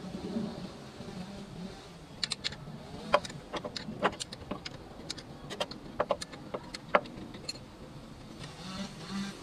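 Irregular metallic clicks and clinks of tools and fittings being handled in a car's engine bay. A couple of sharp ticks a second for about five seconds, the loudest near three and seven seconds in.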